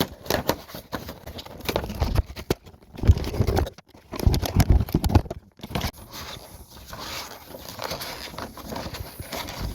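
A holster's retail packaging being torn open and handled: irregular crinkling and rustling with sharp clicks and several heavy thumps.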